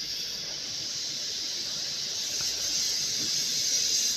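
Steady high-pitched hiss, growing a little louder in the second half.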